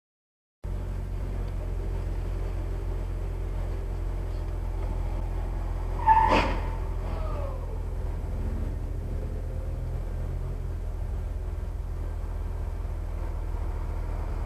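Steady low rumble of a car idling, heard from inside the cabin through a dashcam. About six seconds in comes one loud sharp bang, followed by a short falling whine.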